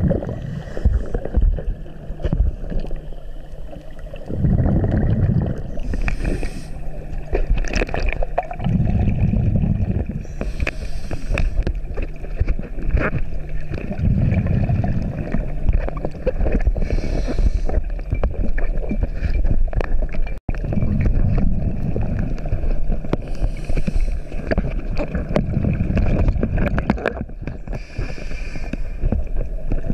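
Scuba diver breathing through a regulator, heard underwater: a hiss on each inhale and a low rush of exhaust bubbles on each exhale, repeating about every four to five seconds over a faint steady hum.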